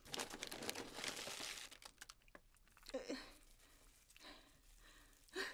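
Coarse salt being scrubbed by gloved hands over a raw octopus's tentacles: a gritty, crunching rub for about two seconds, then fainter. The salt scrub cleans the slime off the octopus. A short voice sound about three seconds in.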